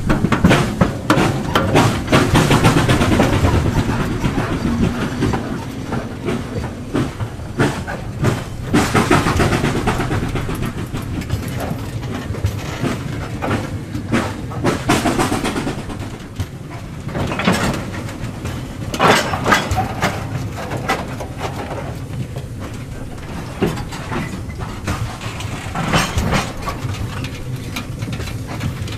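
Train of open coal wagons rolling past close by: a steady rumble with wheels clicking over rail joints, and a few louder clanks in the second half.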